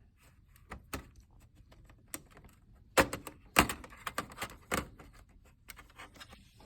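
Scattered sharp plastic clicks and light knocks from handling the parts and cables inside an opened all-in-one computer, the loudest about three, three and a half and five seconds in.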